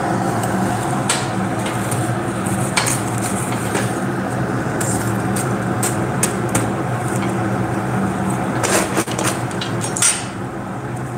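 Steady hum of a forge's air blower, with scattered light metallic clicks and clinks as tongs and a small iron workpiece are shifted in the fire; the clicks bunch up about nine seconds in.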